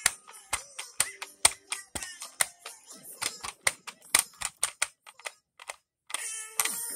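Handling noise: rapid, irregular clicks and knocks as a plastic Thomas the Tank Engine toy is jostled close to the microphone, with faint music underneath. Near the end the clicking stops for about a second, then the music comes up louder.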